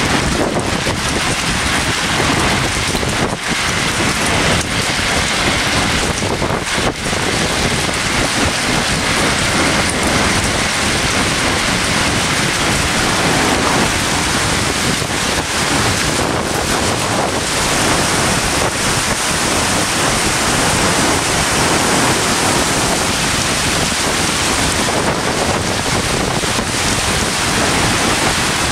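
Heavy hail and strong wind in a severe thunderstorm: large hailstones pelting the pavement in a dense, steady, really loud rush of noise, with wind gusting on the microphone.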